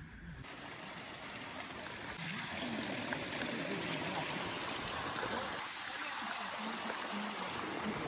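A mountain stream rushing over rocks: a steady, full hiss of running water that swells louder about two seconds in.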